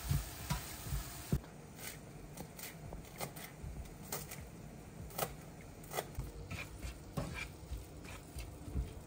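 Quiet kitchen sounds: a spatula stirring onion and garlic frying in a nonstick pan, and a knife chopping parsley on a cutting board, heard as scattered soft taps and clicks.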